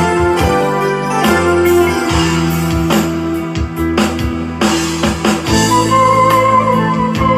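Instrumental background music with a steady beat; a high held note comes in about halfway through.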